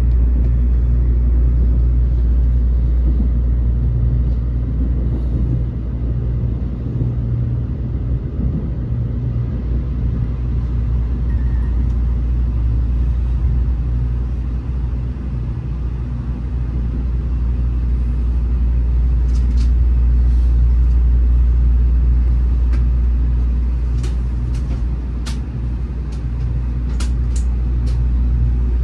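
Tokaido Shinkansen train rumbling low and steady inside the passenger car as it slows into the station on arrival. Several sharp clicks come in the last third.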